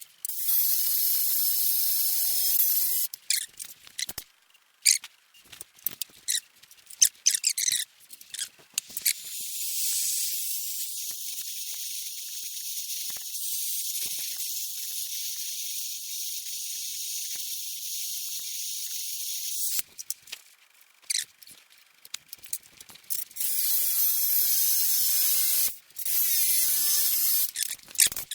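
A small high-speed grinding tool working at a broken stud remnant in a cast iron flathead Ford V8 block, cutting down the edge of the stud. It runs in bursts with short pauses and clicks between, with one longer steadier run in the middle.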